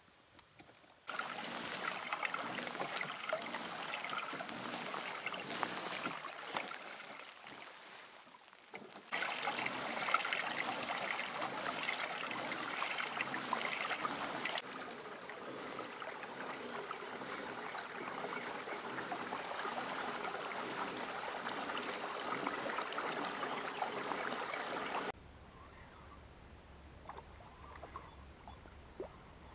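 Water rushing and splashing around a kayak on a river, a loud, even noise that starts suddenly and shifts abruptly in level twice. About 25 seconds in it drops off at once to a much quieter low hum with faint water sounds.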